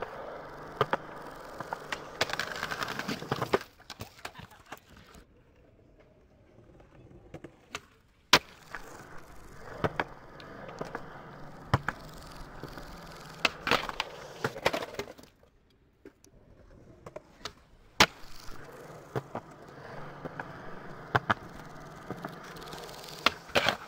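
Skateboard wheels rolling on pavement: a steady rolling rumble with frequent sharp clicks, which dies away twice, for about three seconds a few seconds in and briefly past the middle.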